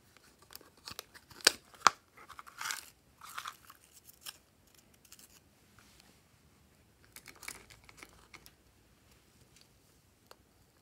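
Hands handling small plastic items, among them a plastic toy handbag. Two sharp clicks come about one and a half and two seconds in, with brief rustling and tapping after them, and another cluster of clicks and rustles comes around seven to eight seconds in.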